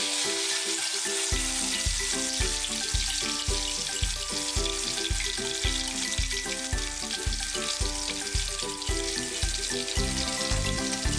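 Wet chili spice paste sizzling steadily as it fries in hot oil in an aluminium wok, just after going into the pan. Background music with a steady beat comes in about a second in.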